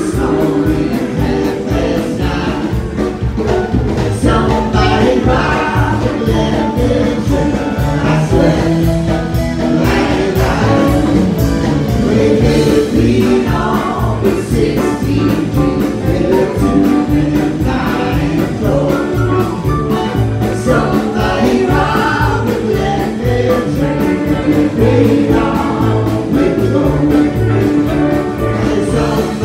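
Live country-rock band playing with a steady beat: electric guitars, fiddle, bass, drums and pedal steel, with a man and a woman singing together.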